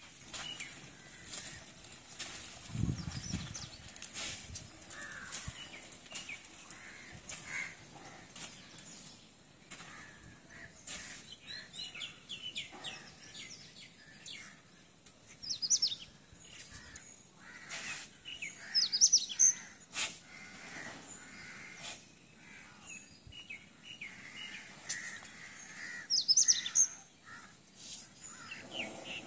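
Birds chirping and calling against faint outdoor background, with louder clusters of high calls about halfway through and again near the end.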